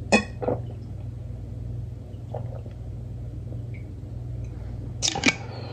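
A person drinking from a plastic bottle: faint swallowing sounds over a steady low hum. Sharp clicks come just after the start and again about five seconds in.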